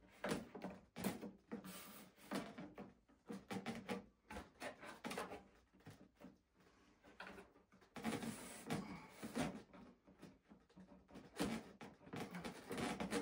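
Irregular small clicks, taps and rustles of hands handling a model airplane's rudder while a hinge pin is pushed up through it from the bottom.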